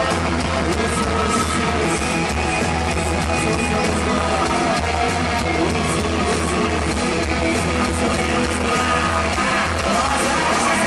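Live heavy metal band playing: electric guitars, bass and drums, with the lead singer singing and shouting into the microphone over them.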